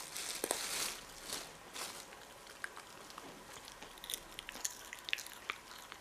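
A small dog chewing fresh broad beans: faint, short crunching clicks, scattered and irregular.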